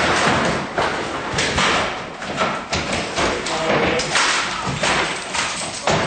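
A rapid series of heavy thumps and bangs, several a second, over a clattering, noisy bed.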